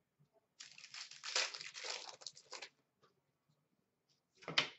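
Hockey trading cards and their packaging being handled: a faint crinkling rustle for about two seconds, then a brief rustle near the end.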